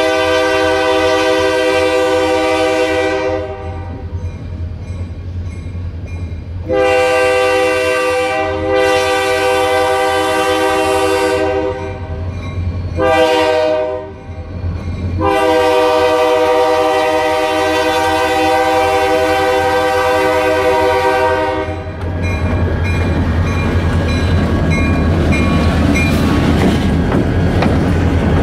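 Freight locomotive air horn sounding the grade-crossing signal: long, long, short, long. The crossing bell rings in the background. From about 22 seconds in, the locomotive's diesel engine and wheels rumble loudly as it passes close by.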